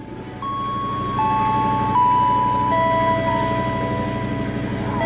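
A simple electronic melody of long held tones, stepping from one pitch to the next, over a steady low rumble.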